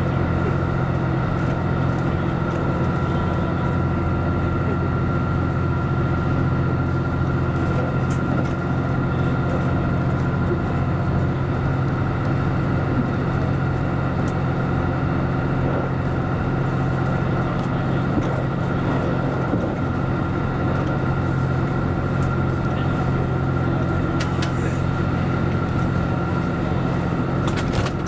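Series 85 diesel railcar running at speed, heard from inside the front car: a steady low diesel drone mixed with rail noise, with a thin steady whine above it and a few short clicks near the end.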